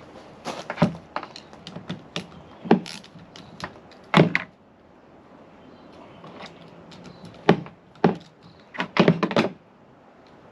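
Irregular knocks and clicks of tools and metal parts being handled while the fuel filter bracket is unbolted, with a quick run of clicks near the end.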